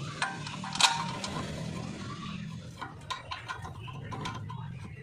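Metal clinks and taps of hand tools on brake parts during a brake pad and disc job. One sharp knock comes just under a second in, lighter ticks follow later, and a steady low hum runs underneath.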